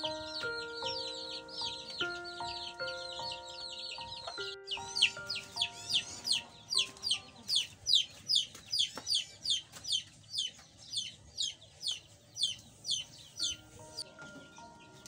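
Young chicks peeping in high, quick, downward chirps, several at once at first, then one loud peep about twice a second through the middle. A light background melody plays over the first few seconds and returns near the end.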